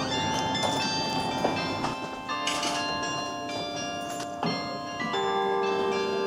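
Carillon bells playing a tune: struck bell notes one after another, each ringing on under the next, with a louder, lower bell sounding about five seconds in.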